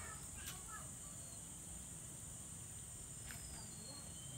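Insects trilling steadily at a high pitch, with two sharp clicks about half a second in and again past three seconds, and a few faint short bird chirps.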